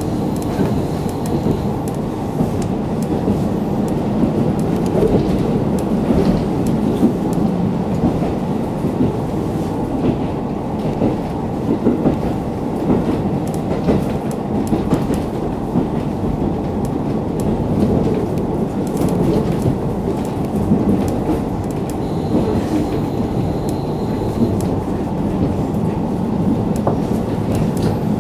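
KiHa 40 diesel railcar running along the line, heard from inside the car. Its diesel engine and wheels on the rails make a steady running noise, with scattered clicks from the rail joints.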